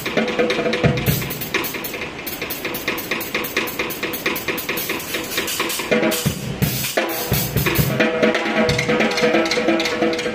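Drum kit playing a busy, rapid groove with cymbals over a music backing track. About six seconds in, the cymbals drop out briefly under a run of lower drum hits. Near the end, steady pitched backing notes come to the fore.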